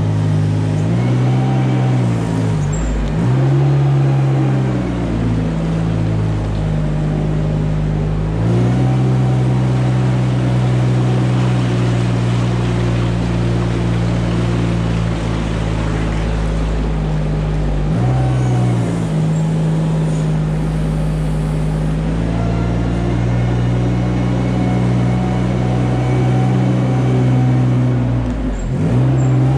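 Engine of a compact articulated farm loader running steadily as it pushes manure with a front scraper blade, its pitch dipping briefly and recovering a few times: near the start, about eight seconds in, around eighteen seconds in and near the end.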